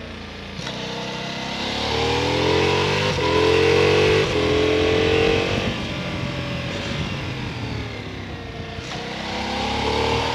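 Ducati Multistrada V4 RS's V4 engine accelerating hard, its pitch climbing through a gear change and holding high and loud. It then eases off about halfway through, and picks up again near the end.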